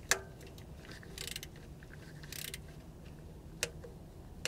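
Ratchet snugging the transmission oil pan bolts: faint ratcheting in two short bursts about a second apart, with a few separate clicks of the tool on the bolts.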